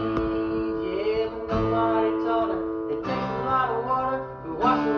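Acoustic guitar strumming chords, a fresh strum about every one and a half seconds, each chord ringing on between strokes.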